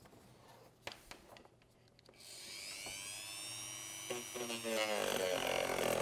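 A small electric motor starts buzzing about two seconds in, its pitch rising and then holding steady, and it grows louder about a second before the end. A few faint clicks come before it.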